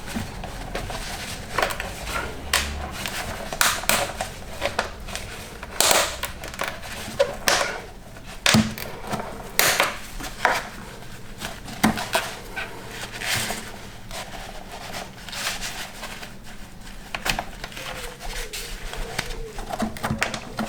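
Irregular clinks and knocks of hand tools and metal parts being handled while unbolting a car's fuel vapour expansion bottle.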